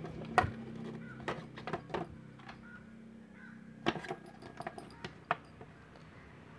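Keys jangling and clicking in a motorcycle's side-cover lock as it is worked to release the plastic side cover: a scattered series of sharp clicks and light knocks.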